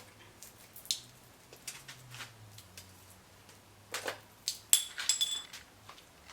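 Scattered light clicks and knocks of metal parts being handled as a cylinder head is pulled off an LS 6.0 V8 block, with a short run of sharper metal clanks that ring briefly near the end.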